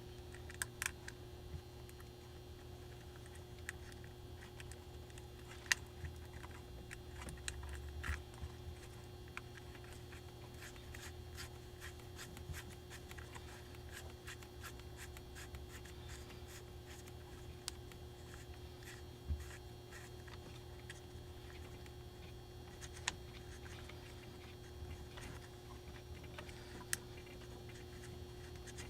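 Scattered light clicks, taps and scrapes of hands handling small parts and wiring while fitting an indicator light in a truck dash, over a steady low electrical hum.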